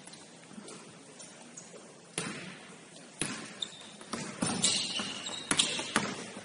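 Basketball bouncing on the court in an uneven series of sharp thuds, beginning about two seconds in and coming faster toward the end.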